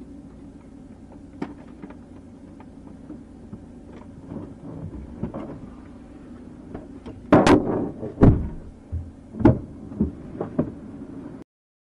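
Seatbelt being unbuckled in a patrol car's hard plastic rear seat, with rustling, buckle clicks and several loud knocks and clunks from about seven seconds in as the belt and buckle hit the seat and the passenger shifts out, over a steady low hum. The sound cuts off suddenly near the end.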